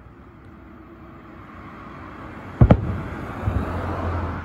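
Fireworks shells bursting overhead: one loud sharp bang about halfway through, rumbling and echoing afterwards, then a second, softer boom about a second later.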